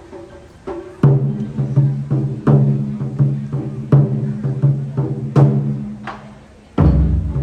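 Japanese taiko drums being played in rhythm: loud, ringing strokes about every second and a half, with lighter strokes between them, and a deep, heavy hit near the end.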